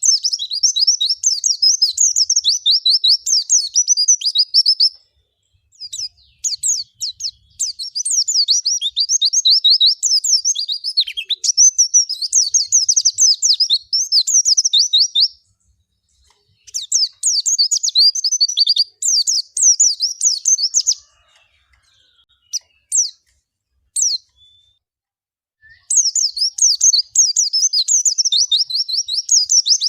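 White-eye (pleci) singing: long runs of rapid, high twittering phrases broken by short pauses, with a few single chirps in a quieter stretch about three quarters of the way through.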